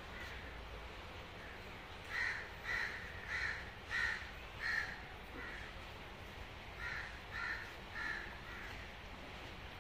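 A bird calling in short repeated calls: five in quick succession about two seconds in, then three more about seven seconds in.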